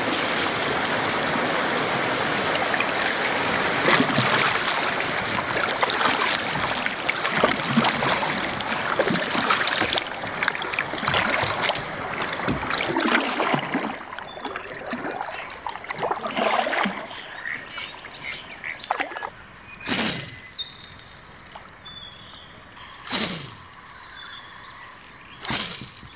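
Shallow river riffle rushing past a kayak, with splashes of paddle strokes, for about the first half. Then the water goes much quieter on flat water, with three short swishes in the second half and faint bird chirps.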